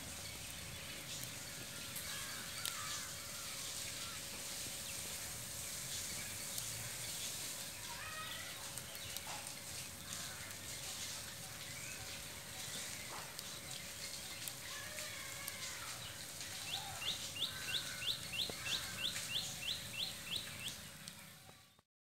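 Birds calling against a steady outdoor background hiss. Near the end comes a run of about a dozen quick, high chirps, roughly three a second.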